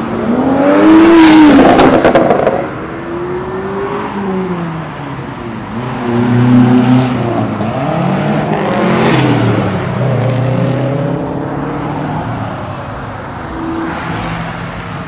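Several car engines revving and accelerating past one after another, their pitch rising and falling and overlapping. The loudest pass comes about a second in, another about six seconds in.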